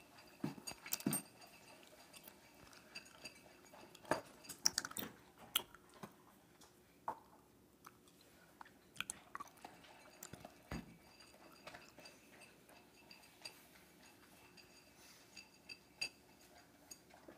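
A dog eating dry kibble fast from a metal bowl: irregular crunches and clicks of chewing, coming thick and quick for the first six seconds or so, then sparser.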